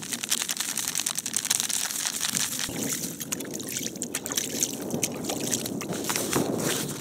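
Water and wet groundbait sloshing in a collapsible fabric bucket as it is poured in, stirred with a wooden stick and mixed by hand, with a steady wet crackling.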